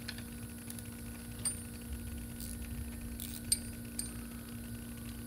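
A few scattered light metallic clinks of a wrench and nuts on the brake bracket bolts as they are fitted and tightened, over a steady low hum.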